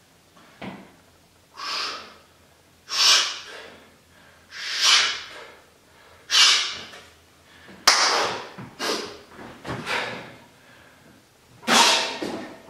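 A man breathing hard and deliberately while recovering between heavy single reps of barbell curls: loud, breathy inhales and exhales about every one and a half seconds, coming closer together in the last few seconds as he takes up the bar. One sharp click about eight seconds in.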